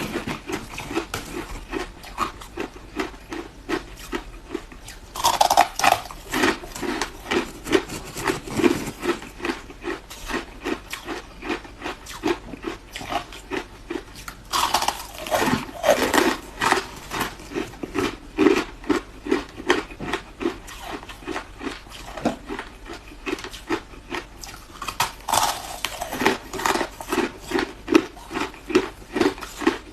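Ice being bitten and chewed close to a microphone: a run of crisp crunches, about two to three a second, with a bigger, fuller crunch of a fresh bite about every ten seconds.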